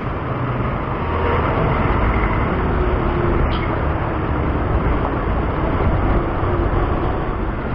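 Steady rushing wind noise on the microphone with road and traffic noise while riding a bicycle.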